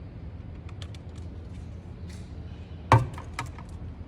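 Metal hand tools clicking and tapping against engine parts, with one sharp knock about three seconds in, over a low steady hum.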